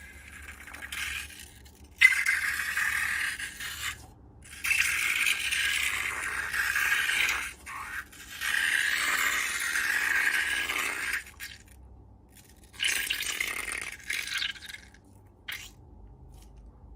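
Scraping and rattling from slime-making materials being handled, in four bursts of two to three seconds each with short pauses between.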